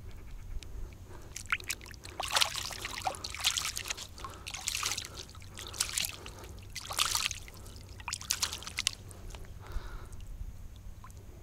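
Shallow water splashing and trickling, stirred by hands, in a string of short splashes over several seconds as a crucian carp is released back into the water.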